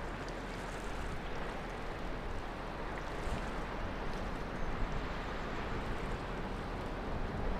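Oil/chemical tanker passing close by: a steady low rumble with the rushing wash of its bow wave.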